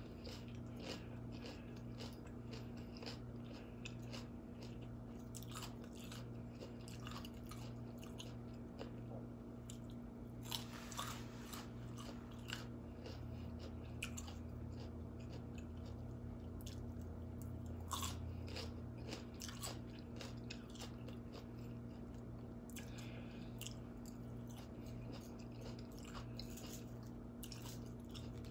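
Close-miked chewing and crunching of a mouthful of raw salad vegetables, with many small crackly crunches and a few louder ones, over a steady low electrical hum.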